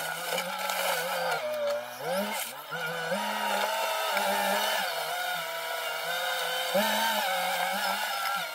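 Caterpillar 247B compact track loader's diesel engine running hard under load, its pitch stepping up and down repeatedly as it scoops gravel, raises the bucket and turns on its tracks.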